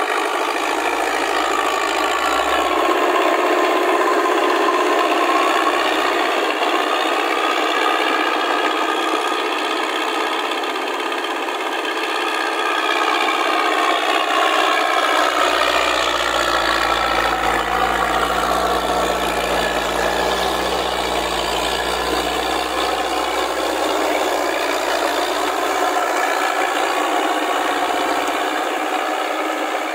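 Massey Ferguson tractor's engine running steadily under load, its pitch drifting up and down, with the rattle and clank of its steel track wheels and rear rotary tiller working through wet paddy mud. A deeper rumble comes in about halfway through.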